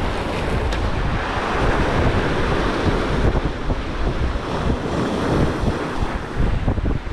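Sea waves surging and washing against shore rocks, with wind buffeting the microphone.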